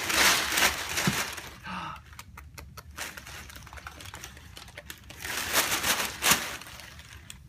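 Sheets of white tissue paper crinkling and rustling as a baby's hands grab and shake them: two loud stretches, one at the start and another a little past the middle, with faint scattered crackles in between.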